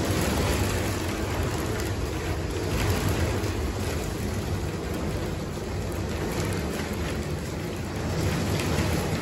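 Hail pelting the translucent roof panels of a sunroom overhead: a dense, steady patter of countless small impacts over a deep drumming from the roof.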